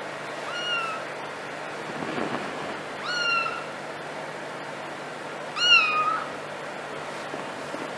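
A kitten meowing three times: short, high-pitched calls about two and a half seconds apart, each rising quickly then levelling off, the third the loudest.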